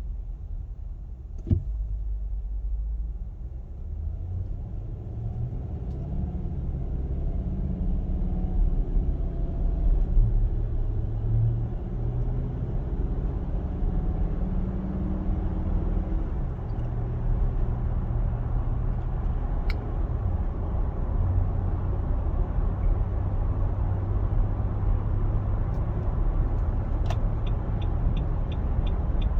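A 2021 Nissan Armada's 5.6-litre V8 running with a steady low rumble and a drone that shifts slightly in pitch, the loud engine noise the owner is documenting. There is a single click about a second and a half in, and a quick run of light ticks near the end.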